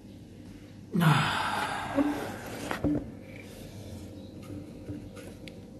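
A man's sudden deep gasping inhale about a second in, ending a breath hold on empty lungs, then fading over the next couple of seconds.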